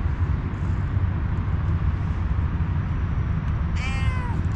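A cat gives one short meow, falling in pitch, about four seconds in, over a steady low rumble.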